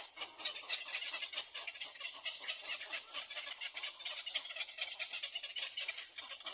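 Nestling birds begging: a dense, continuous run of rapid, high-pitched chirps.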